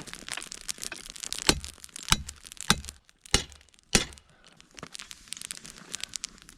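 Charcoal fire crackling and popping in a forge, with rapid small snaps throughout and a run of about five louder, sharper cracks a little over half a second apart in the first half.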